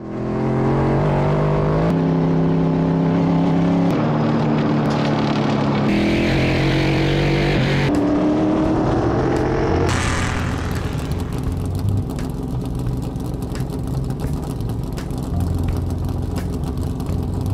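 NASCAR Next Gen Ford Mustang race car's V8 engine running at high revs, holding a steady note that shifts up or down every couple of seconds, then revving up just before ten seconds in. After that the sound turns rougher and noisier, with many quick ticks.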